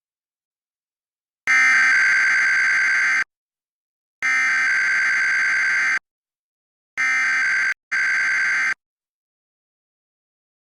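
Emergency Alert System SAME header: three buzzy digital data bursts, each nearly two seconds long and about a second apart, starting and stopping abruptly. The repeated bursts carry the coded alert header that tells receiving stations the event, area and time.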